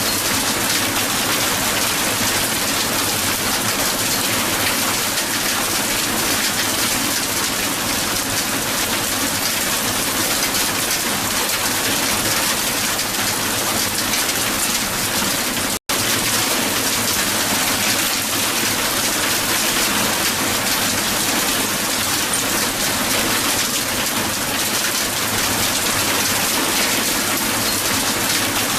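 Hail falling hard on the ground: a dense, steady clatter of countless small impacts. It cuts out for an instant about halfway through.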